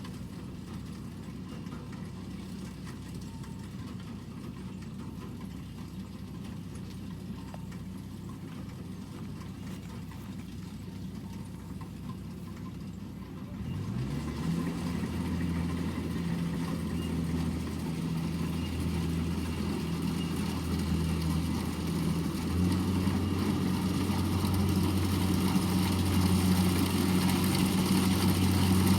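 Combine harvester engine: a low, fairly quiet running sound, then about halfway through it revs up and settles into a louder steady run that keeps growing louder toward the end.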